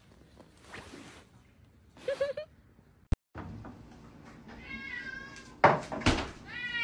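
A cat gives a short meow in three quick pulses about two seconds in. Two loud knocks follow near the end.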